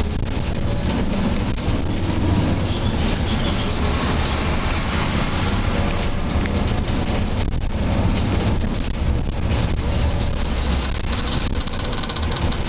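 Moving bus heard from inside the cab: a steady low engine and road rumble with a constant rattle and tyre hiss.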